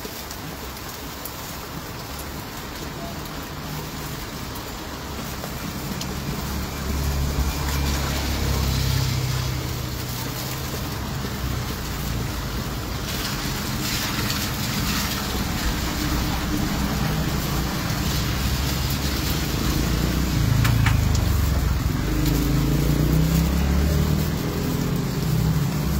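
Road traffic passing on a wet street: vehicle engines swelling and fading over a steady hiss of rain and tyres, louder from about a quarter of the way in.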